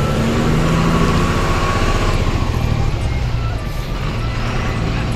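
Truck engine running steadily at low speed, heard from inside the cab.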